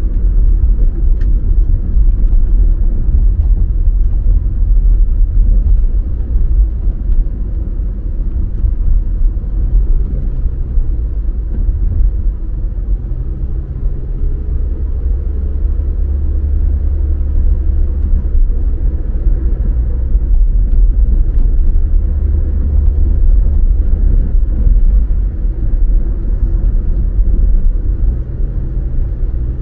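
A car being driven: a steady low engine and road rumble. The engine note shifts up and down a few times.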